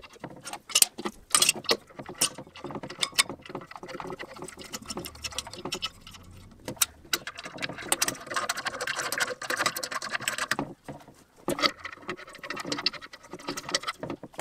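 Irregular metallic clicks and clinks as a 4Runner front wheel hub and its bolts and nuts are fitted by hand into a laser-cut steel spindle on a steel workbench.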